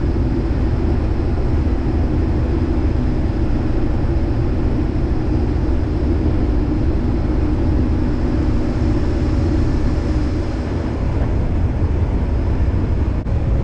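Case IH 2388 combine running steadily while harvesting corn, a constant mechanical drone with a low rumble.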